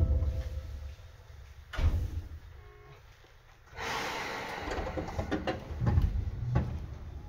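Inside a Seibu 2000 series commuter train standing at a station: sliding doors thud, with a heavy knock at the start and another about two seconds in. From about four seconds in a hiss of compressed air runs, with a few more knocks.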